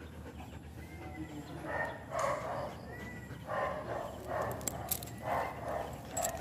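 A dog panting in short, even breaths, about two a second, starting a couple of seconds in, with a few faint clicks near the end.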